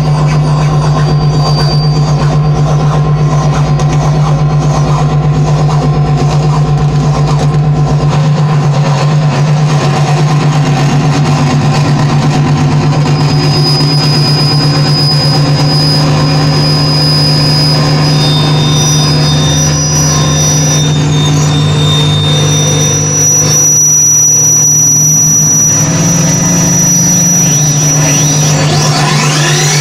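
Loud live electronic drone music played on tabletop electronics and effects: a steady low drone under layered sustained tones. High whistling tones come in about halfway through, and rising pitch glides sweep up near the end.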